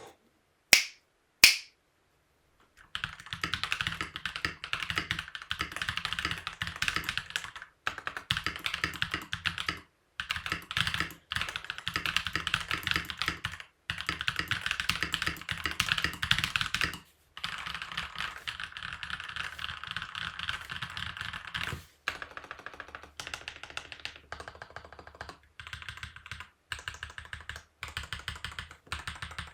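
Akko 5087B mechanical keyboard, modded with swapped switches, lubed stabilisers and a tape mod, being typed on in fast bursts with short pauses between them; after about 22 seconds the keystrokes become slower and more separate. Two sharp clicks come before the typing starts.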